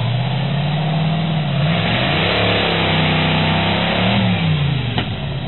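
Off-road vehicle's engine running and revving, its pitch rising and falling a couple of times, with a short click near the end.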